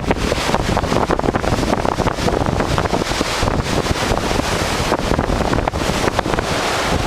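Strong hurricane wind buffeting the microphone, a loud, steady rush with constant fluttering.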